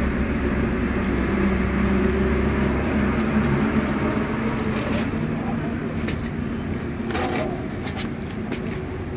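An RFL digital platform scale's buzzer giving short high beeps about once a second, over a steady background hum and the handling of its charger plug and cable. The scale is switched on but its display stays blank, the fault being repaired.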